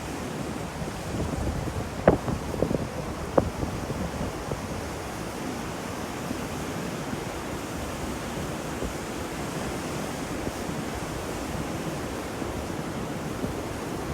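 Steady rain hiss, with a few sharp, louder taps of drops about two and three and a half seconds in.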